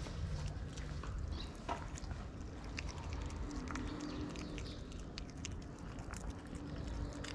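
Two kittens chewing and smacking as they eat wet food from a foil tray, with many small irregular clicks, over a steady low background rumble.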